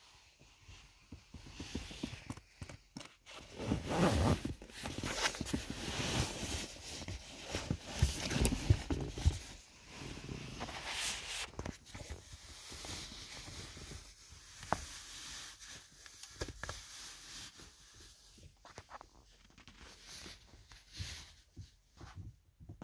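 Black nylon puffer winter boot being unzipped and pulled off: zipper, fabric rustling and scraping, loudest in the first half. After that come lighter scuffs and clicks from a socked foot on the car pedals.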